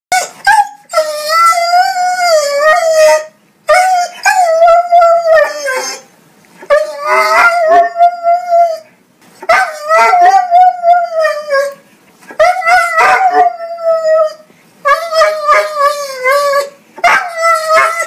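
A dog howling in a run of about seven long, wavering howls, each two to three seconds long, with short breaks between them.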